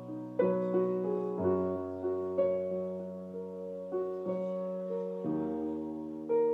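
A keyboard plays the slow, gentle instrumental intro of a song: a new note or chord is struck roughly every half second to second and then fades. Low bass notes are held underneath and change twice.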